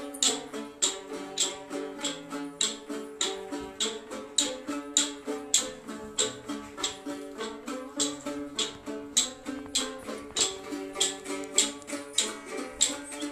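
Folk music played on plucked string instruments, a steady rhythmic tune of sharp plucked notes, about two or three a second.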